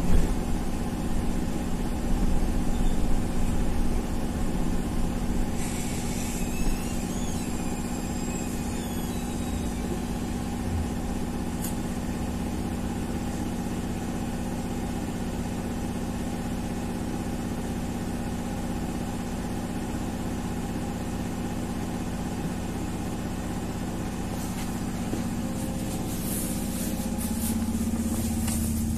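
Interior sound of a BKM 333 trolleybus: a steady electric hum and rumble. A brief high squeal comes about six seconds in, and a burst of hissing near the end.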